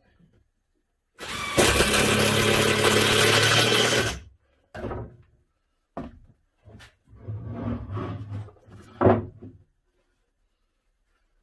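Cordless impact driver driving screws into a timber and furniture-board cabinet frame: one long run of about three seconds starting about a second in, then several short bursts.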